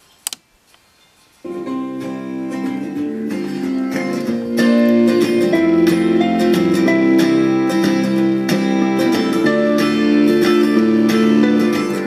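Instrumental music with a clear melody, played back through a loudspeaker driven by a TPA3116 class-D amplifier board. It cuts in suddenly about a second and a half in, just after a single click.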